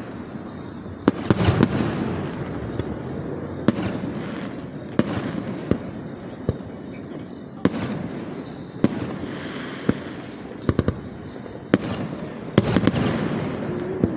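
Aerial fireworks display: sharp bangs of shells bursting about once a second or more, over a continuous rumble and crackle. Heavier volleys come about a second in and again near the end.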